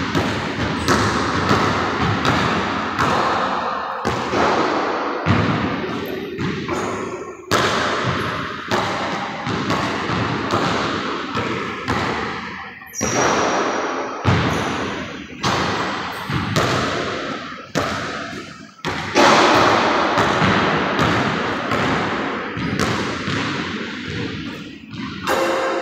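A basketball being dribbled on a hardwood gym floor: repeated bounces about two a second, each echoing in the gym.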